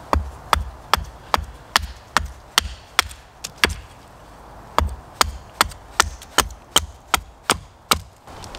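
Hatchet chopping the end of a wooden stake held upright on a chopping block, shaping a point: quick, even chops about two or three a second. A brief pause about halfway through, then another run of chops.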